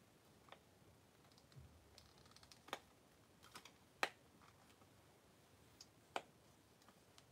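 Hard plastic parts of a transforming Ptera Freeze Zord toy clicking as they are twisted and fitted together by hand. There are a few sparse, sharp clicks with quiet between them, the three loudest about a second or two apart.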